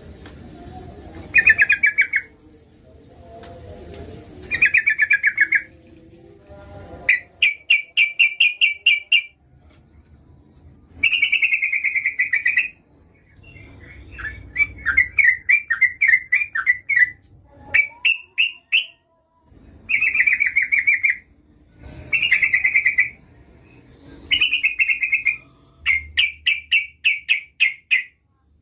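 Yellow-vented bulbul (trucukan) calling in repeated bursts of rapid, chattering notes, each burst a second or two long with short pauses between; these are presented as a female's calls to a male.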